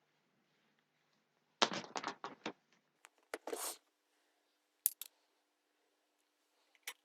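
Sharp clicks and light knocks of small parts being handled on a workbench: a quick run of five or six clicks about one and a half seconds in, a short rustle, then a double click and a last single click near the end.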